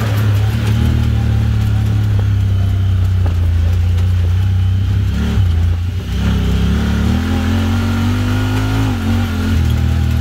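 Honda Talon X side-by-side's 999 cc parallel-twin engine running under throttle through an aftermarket Evo Performance exhaust. It eases off briefly about five seconds in, then the pitch climbs as it accelerates before settling again.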